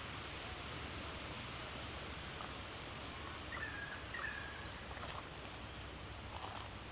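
Steady rushing outdoor hiss, easing slightly near the end, with two short bird chirps about halfway through.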